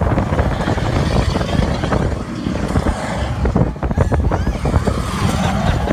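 Roller coaster train running fast along its track, with the cars rumbling and heavy wind buffeting the microphone.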